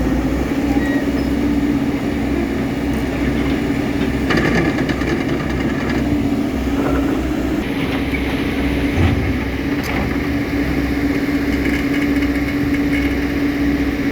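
A heavy machine's engine running steadily, with a constant hum over a low rumble. A rattling stretch comes about four to six seconds in, and a short low thump about nine seconds in.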